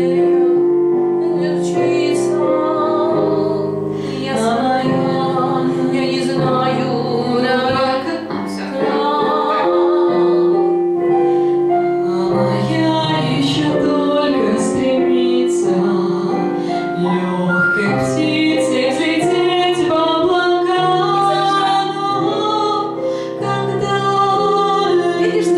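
A female vocal student sings the closing lines of a pop ballad over piano accompaniment. She holds several long notes with vibrato.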